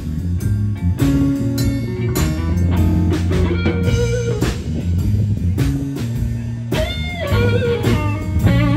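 Live blues band, with no vocal: electric guitar playing lead lines with bending notes over electric bass and a drum kit.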